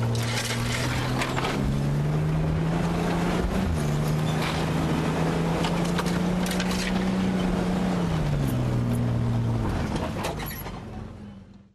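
Chevrolet S-10 pickup's engine heard from inside the cab on a rough dirt trail: the engine note rises a little over a second in, holds, then eases back down about eight seconds in, with scattered clicks and knocks from the truck over the bumps. The sound fades out at the very end.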